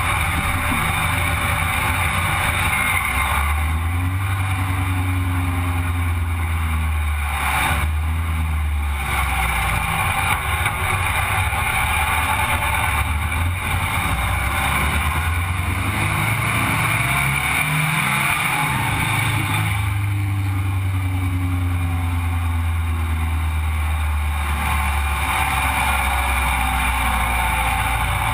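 Sandrail engine pulling the buggy along a street at a steady speed, with wind rushing over the open frame. The engine note drops away about a third of the way through, climbs again near the middle and then holds steady.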